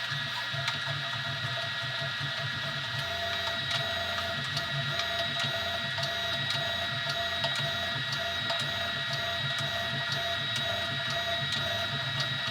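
Easythreed X2 3D printer running a print: steady high whining tones with a low buzz underneath that changes pitch and stops and starts in short stretches, and faint ticks.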